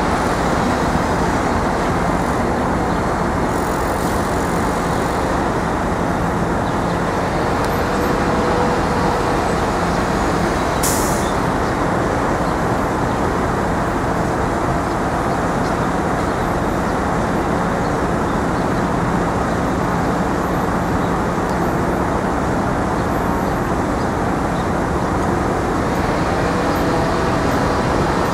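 Steady road-traffic noise from motor vehicles, an even rumble with no breaks, and a brief high hiss about eleven seconds in.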